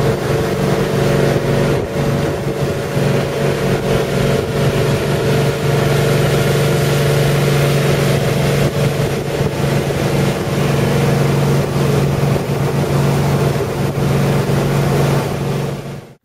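Motorboat engine running steadily at cruising speed, a constant drone over the rush of water and wind on the microphone; it cuts off abruptly near the end.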